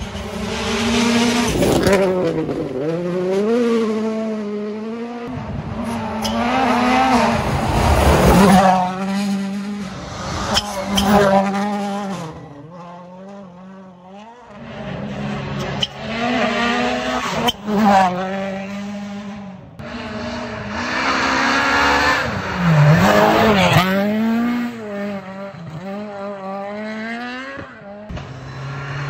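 Rally cars running hard through a special stage, one after another: engines revving up and dropping back through gear changes as they brake and accelerate, with a few sharp cracks from the exhaust. There is a quieter stretch in the middle.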